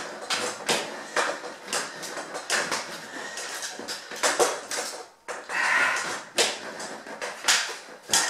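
Metal clicks, knocks and rattles from a camp cot's tubular frame as its end bar is worked by hand to stretch the canvas over it: an irregular run of sharp clatters.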